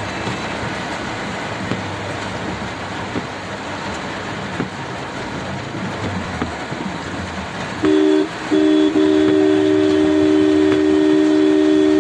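Steady hiss of rain and street traffic; about eight seconds in, a loud horn of several steady tones sounds, first a short blast, then after a brief break a long held blast.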